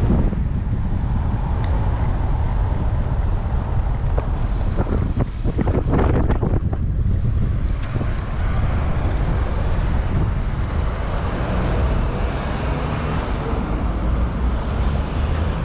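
Wind rushing over the microphone of a bicycle-mounted action camera while riding, mixed with city traffic noise. There is a cluster of short knocks about five to seven seconds in.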